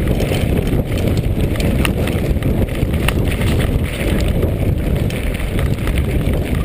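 Mountain bike rolling over a stony dirt track: a loud, steady rumble of tyres on gravel with wind buffeting the microphone, and sharp clacks now and then as the bike rattles over stones.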